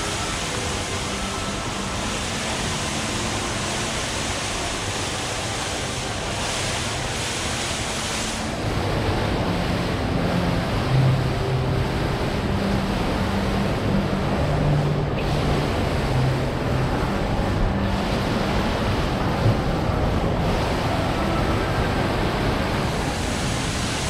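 Steady rushing of water from an indoor fountain. About eight seconds in the sound turns louder and deeper, losing its high hiss, with faint low tones underneath.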